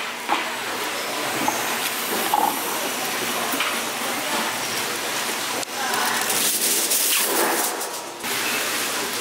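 Food stall ambience: a steady hiss, like steam from the cooking pots, under faint background voices, with a few light clicks and knocks.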